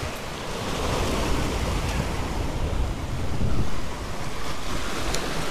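Surf breaking and washing against the boulders of a rock jetty, with wind rumbling on the microphone. The wash swells to its loudest about three and a half seconds in.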